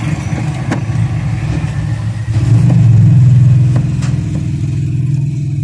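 A motor vehicle engine running steadily, growing louder about two and a half seconds in and easing back about a second later, with a couple of light clicks.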